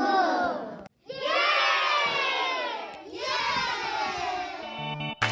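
A group of young children cheering and shouting together. There are two long shouts with a brief silent break about a second in, and keyboard music starts near the end.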